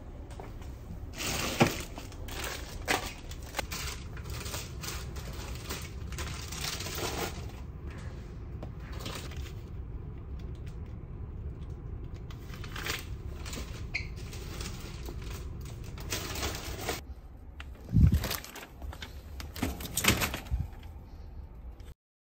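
Small hard objects being handled and set down: a run of irregular clicks and clatter, then two heavier thumps near the end, over a low steady hum.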